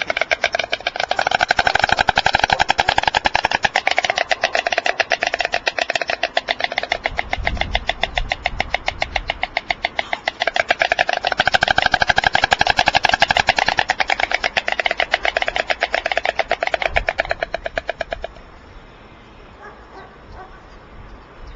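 White storks clattering their bills in two long bouts of rapid, machine-gun-like clicks that stop suddenly about 18 seconds in. This is the pair's clattering display as the second adult arrives at the nest.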